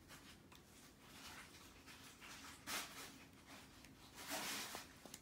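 A plastic squeeze bottle of sweet chili sauce being squeezed over chicken wings: faint squishing, with two brief louder hissing spurts about two and a half and four and a half seconds in.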